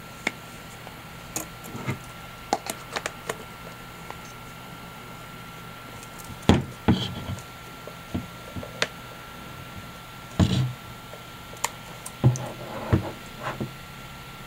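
Scattered clicks and knocks of a Canon TX 35mm film SLR and a 75-200mm manual zoom lens being handled and fitted together at the lens mount, with the loudest knocks about halfway through and again a few seconds later.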